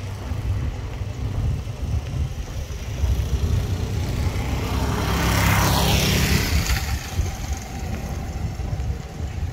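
A vehicle passing close by, its hiss swelling to a peak about halfway through and falling in pitch as it goes past, over a steady low rumble of wind buffeting the microphone.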